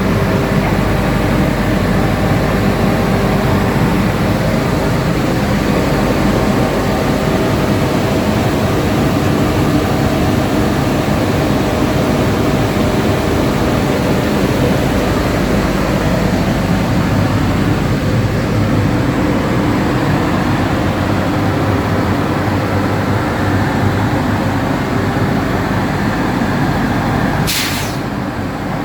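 Drilling rig machinery at a 2000 HP drawworks running with a loud, steady mechanical hum and rumble. A short hiss comes near the end.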